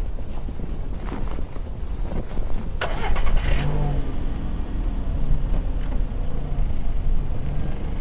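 A car engine starts with a sharp crank about three seconds in, then runs at a steady idle. Wind rumbles throughout.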